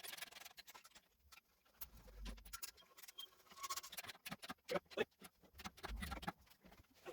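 Faint, irregular clicks and light knocks of parts and hand tools being handled in a car's engine bay, with two low, dull thuds about two and six seconds in.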